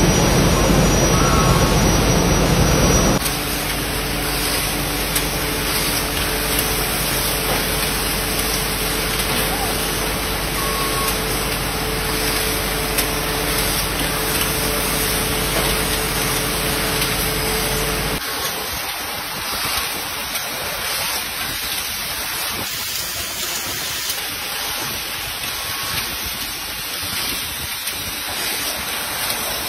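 Glass bottle factory noise. A loud low rumble at the glass furnace for the first three seconds, then the steady rushing noise of a bottle-forming machine with a faint steady hum. About eighteen seconds in it turns to a thinner hiss.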